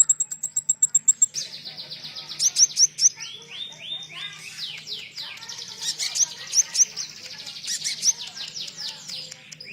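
Bird-song training recording of a konin with cililin song mixed in: a fast, high, continuous twitter of short slurred notes. It opens with a quick run of sharp high ticks, and after about a second it breaks into rapid chattering runs. A faint steady low hum lies under it.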